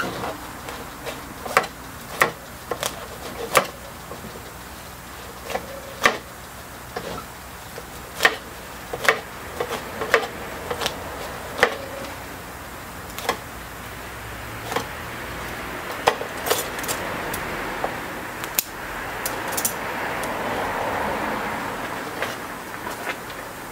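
Persimmon bonsai root ball being worked apart by hand while repotting: irregular sharp snaps and clicks, roughly one a second, as the roots give way. In the second half a soft rustle of soil and moss rises and then fades.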